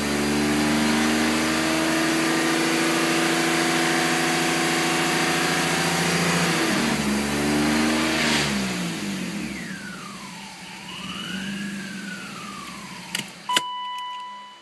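Stroked BMW M50 straight-six idling, the rough idle that the car is being recorded for. About seven seconds in, the revs fall away and the engine runs down to a stop. A wavering whine, two clicks and a short steady beep follow near the end.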